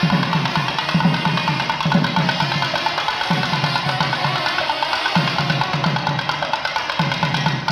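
Kerala temple drums played by hand in a fast, dense rhythm, with low strokes bunched into phrases that recur every second or two.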